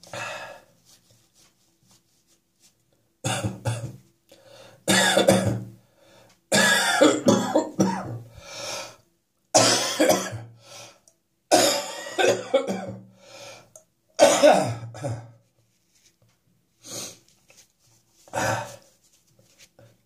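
A man coughing in repeated bouts, clearing catarrh from his chest and throat: the residue of a chest infection that is on its way out. About eight separate bouts, the longest lasting two to three seconds, with short pauses between them.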